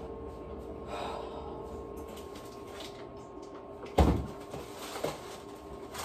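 Things being shifted around on the shelves of an open refrigerator, with one sharp knock about four seconds in and a few lighter knocks after it, over a faint steady hum.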